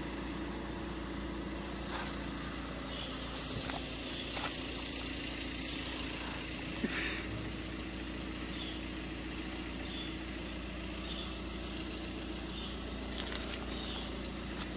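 Steady low mechanical hum, like an idling engine, with a few faint short high chirps and a brief rustle about seven seconds in.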